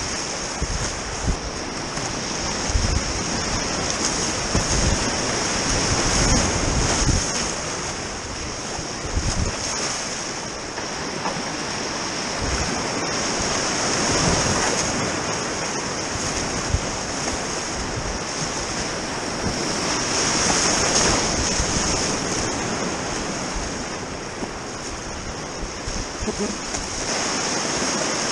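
Grade 3 whitewater rapids rushing around a kayak, with water splashing onto the bow-mounted camera. Brief low thumps on the microphone come mostly in the first ten seconds.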